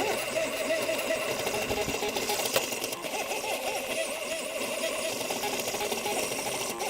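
3D printer's stepper motors whining as it prints, the pitch rising and falling in quick repeated arcs as the print head moves back and forth.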